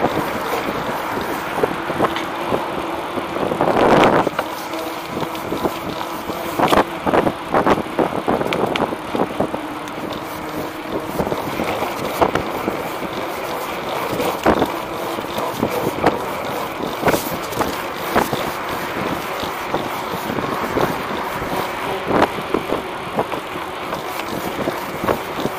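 A treaded wheel rolling along a concrete sidewalk: a steady rolling noise with wind on the microphone, broken by sharp clacks as it crosses pavement joints and cracks.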